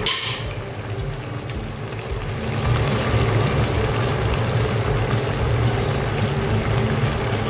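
Steady low mechanical hum, like a motor or fan, in a kitchen where a pot simmers on a gas stove, with a brief hiss right at the start.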